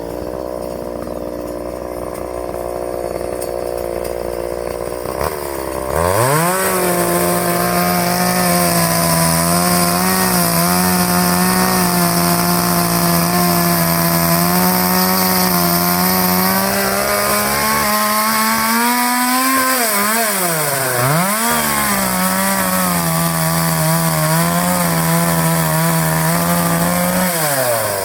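Two-stroke chainsaw idling, then opened up to full throttle about six seconds in and held there with a slightly wavering pitch as it cuts through palm fronds. The revs drop and pick up again twice a little after the middle, and fall back to idle near the end.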